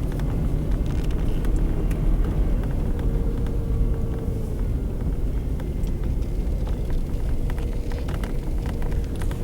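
Truck engine running steadily: a low rumble with a faint, even hum above it.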